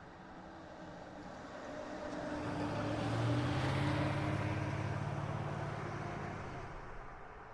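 A car driving past: engine and tyre noise grow louder, peak about three and a half seconds in, then fade away.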